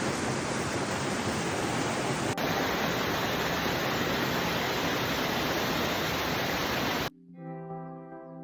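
Waterfall rushing in a steady roar of falling water. About seven seconds in it cuts off and music with sustained brass-like notes begins.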